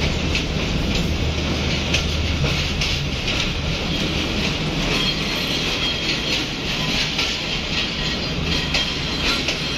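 Passenger train at a station platform: a steady low hum, with scattered clicks and clanks and a faint high squeal now and then.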